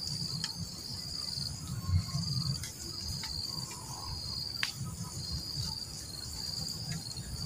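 Crickets trilling in a steady high-pitched chorus that pulses on and off, over a low rumble.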